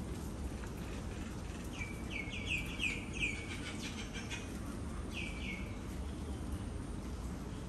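A bird calling from the garden: a quick run of about seven short, high chirps about two seconds in, then two more a couple of seconds later, over a steady low outdoor background.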